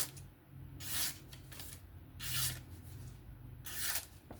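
Kizer Drop Bear knife blade drawn in four separate strokes, each a short hissing scrape, as its edge is run across paper or a hone.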